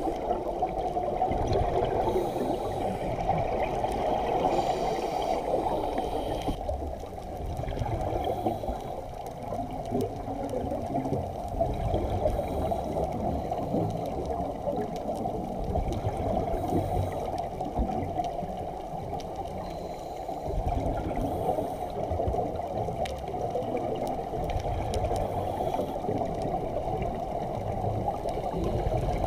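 Muffled underwater sound: a steady watery rush that swells unevenly, with gurgling from scuba divers' exhaled bubbles.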